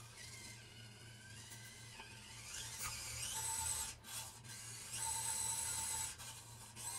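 Small electric motor and gear drivetrain of an FCX24 1/24-scale RC crawler whining as it climbs a 50-degree ramp. The whine rises in pitch as it spins up about two seconds in, then comes and goes in throttle bursts with short breaks.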